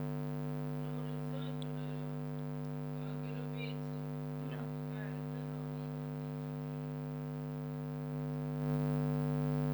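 Steady electrical hum with a stack of evenly spaced tones, getting a little louder near the end, with faint distant voices in the background.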